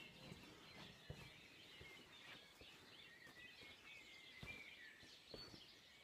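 Faint dawn chorus of birds: many small chirps and short trills overlapping, distant and quiet, with a couple of faint knocks.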